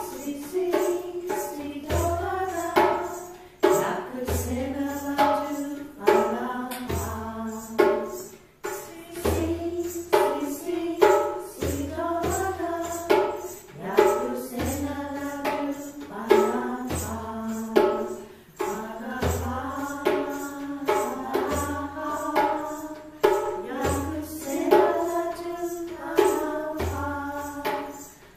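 A song sung by a small group of voices, with steady hand percussion: a low drum stroke about every two seconds and tambourine-like jingling clicks between.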